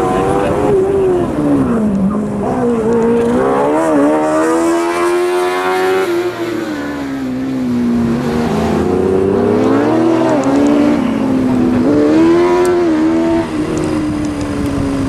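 Subaru BRZ's flat-four engine revving hard and easing off again and again as the car accelerates and slows through an autocross course, its pitch rising and falling several times.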